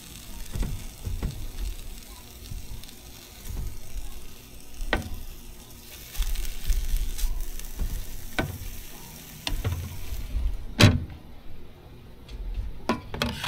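Food sizzling and frying on a Blackstone 17-inch flat-top griddle, a steady hiss with scattered sharp knocks. About ten seconds in the sizzle cuts off, followed by the loudest knock.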